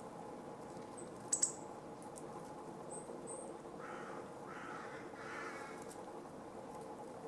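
Three harsh caws from a distant crow, over a steady low hum. Earlier come a sharp high chirp and two short high notes from a small bird.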